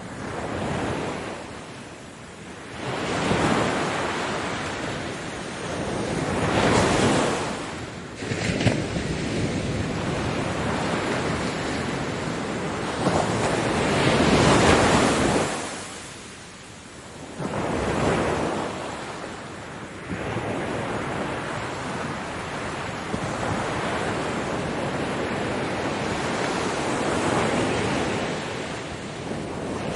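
Ocean waves breaking on a beach: a wash of surf that swells and falls back every few seconds, loudest about halfway through, then settles into a longer, steadier rush.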